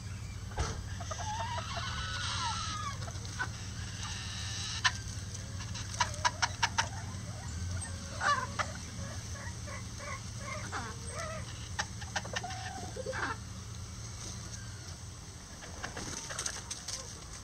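Bantam chickens clucking and calling, with a quick run of sharp taps about six seconds in.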